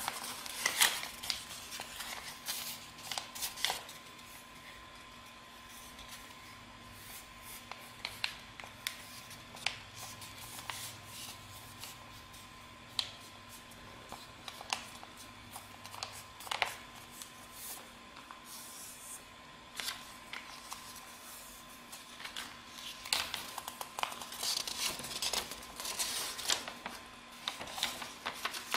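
A sheet of A4 paper being folded and creased by hand: irregular rustles and sharp crackles of the paper, busiest in the first few seconds and again near the end, over a faint steady hum.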